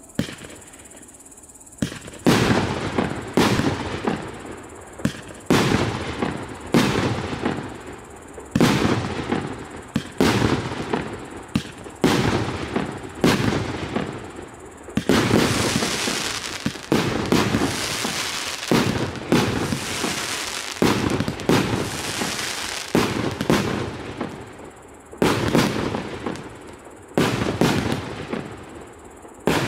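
Russkaya Pirotekhnika PC8440 48-shot 1.25-inch firework cake firing shot after shot, about one bang a second, each followed by a short fading tail. In the middle the shots come thicker and run together for several seconds.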